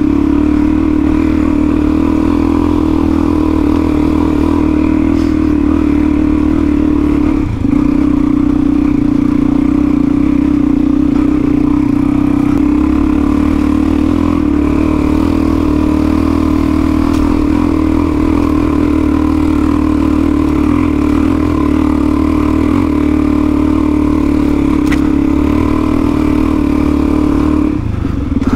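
Suzuki DR-Z400 single-cylinder dual-sport motorcycle engine pulling steadily under load while climbing a steep, loose track, held at an even pitch with a brief dip in throttle about seven seconds in.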